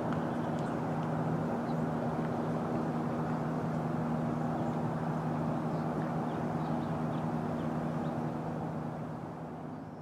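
A steady low engine drone carrying two held low tones, heard from afar, with a few faint high chirps over it; it starts to fade near the end.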